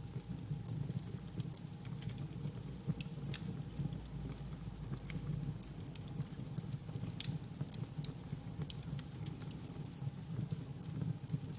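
Wood fire burning with a steady low rumble of flames and irregular sharp crackles and pops from the burning wood.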